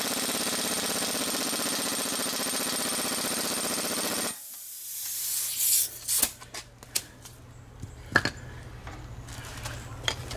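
Power impact wrench hammering the flywheel nut tight on a Honda GCV190 engine, a steady rapid rattle that stops abruptly about four seconds in. A few light clanks of tool and metal follow.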